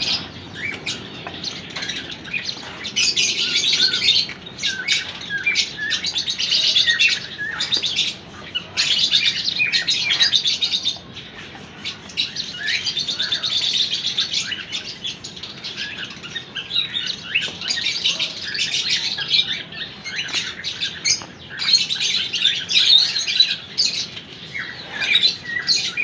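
A flock of small aviary finches chirping and twittering continuously, swelling into louder waves of chatter several times.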